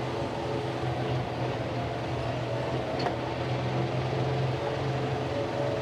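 John Deere 4075R compact tractor running under load, its PTO driving a RhinoAg TS10 10-foot flex-wing rotary mower through tall grass: a steady mechanical drone with a constant low hum.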